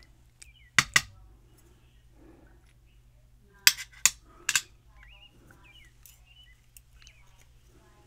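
Sharp little metal clicks and clinks: two about a second in, then three more around four seconds in. They come from steel tweezers, small lock pins and the bronze lock cylinder knocking against a machined aluminium pin tray as the lock is taken apart.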